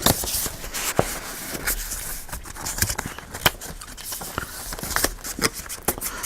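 Journal pages of cardstock and paper being turned and handled, rustling with many irregular small clicks and flicks.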